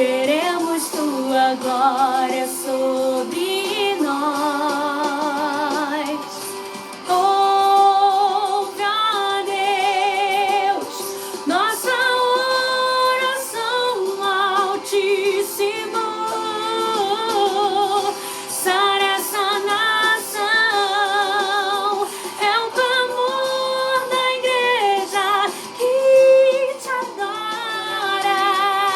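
A woman singing a Portuguese gospel song with heavy vibrato over instrumental accompaniment, holding and bending long notes.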